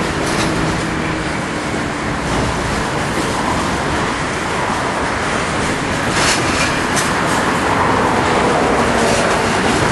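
Freight train of covered wagons rolling past, a steady rumble of wheels on the rails with a few sharp clicks about six and seven seconds in, growing slightly louder near the end.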